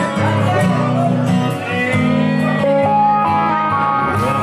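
Recorded music: a song led by guitar, with long held notes.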